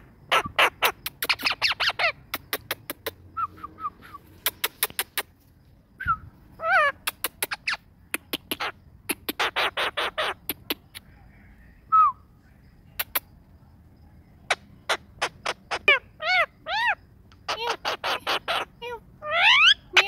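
Male Indian ringneck parakeet making rapid runs of sharp clicks, broken by a few short calls that rise and fall in pitch, and a rising call near the end.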